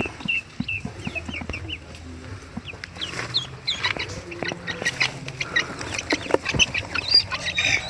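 Ducklings peeping: many short, high chirps, each sliding down in pitch, in quick irregular runs, with a few light knocks among them.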